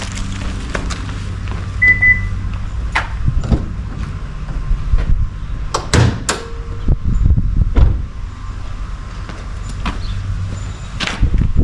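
A few sharp knocks and clatters of things being handled, over a steady low hum. There is a brief high tone about two seconds in.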